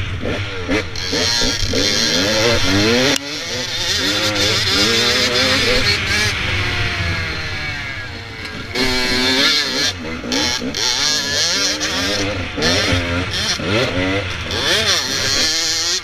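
Dirt bike engine revving hard and easing off as the rider works the throttle and gears, its pitch climbing again and again, dropping sharply about three seconds in and falling away for a few seconds past the middle before climbing once more. A steady rush of wind over the helmet-mounted microphone runs under it.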